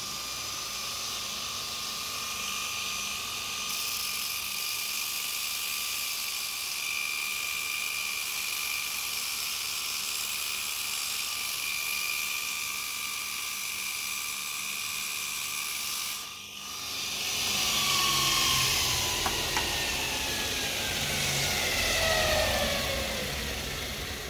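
Bench linisher (belt sander) motor running with a steady whine while a stainless bolt spun in a cordless drill is ground against the belt to round off its end. After a brief break about two-thirds of the way in, the sound gets louder, with a low rumble and whines that fall in pitch.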